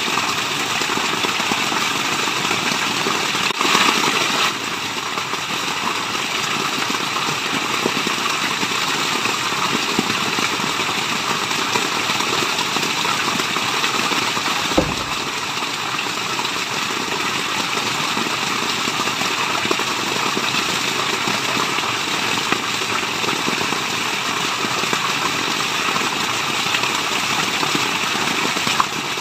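Steady rush of falling water, a dense even hiss. It swells briefly about four seconds in, and there is one soft thump near the middle.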